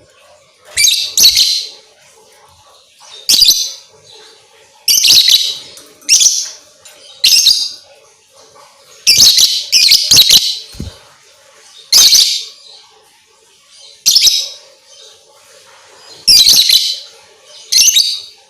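Lovebird chattering in loud, high-pitched bursts, about ten of them, each a second or less with short gaps between. It is a lure recording meant to set other lovebirds singing.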